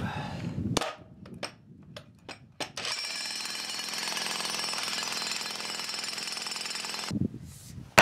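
60-pound electric jackhammer with a spade bit hammering steadily into rocky ground for about four seconds, worked around the edges of a large buried rock to loosen it. A few scattered knocks come before it starts. Near the end there are sharp knocks, the last and loudest as a bar strikes down into the hole.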